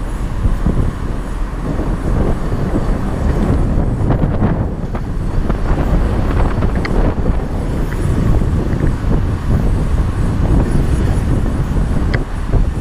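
Volkswagen Golf 1.4 TSI on the move, heard from a camera mounted outside the car: a dense, steady rumble of tyres on the road and wind buffeting the microphone, uneven over the rough surface, with a couple of faint ticks.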